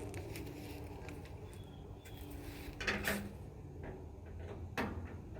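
Parts of a gas smoker being handled and fitted during assembly, with a faint steady hum and two sharp knocks, one about three seconds in and one near the end.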